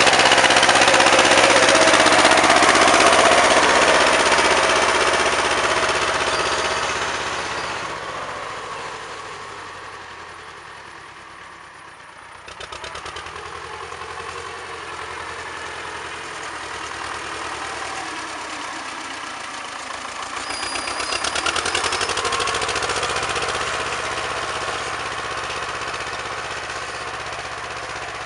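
Vladimirets T-25 tractor's two-cylinder air-cooled diesel running. It fades over several seconds, then about midway gives way abruptly to a nearer, even engine beat that swells briefly and holds steady.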